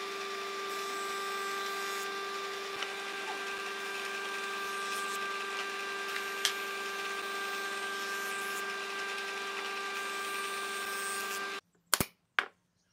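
Woodworking jointer running steadily with an even whine while a pine board's edge is passed over its cutter. Near the end the machine sound stops abruptly and two sharp knocks follow about half a second apart.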